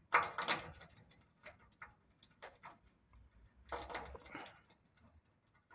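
Lock pick and tension wrench working inside a seven-pin Travex door lock cylinder with spool pins: light metallic scraping and clicking. There are two denser scratchy stretches, one near the start and one about two-thirds through, with scattered small ticks in between.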